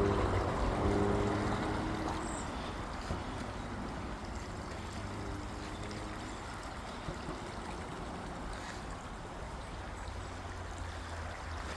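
A motor vehicle's engine fading away over the first two seconds, leaving a steady rushing noise in the background.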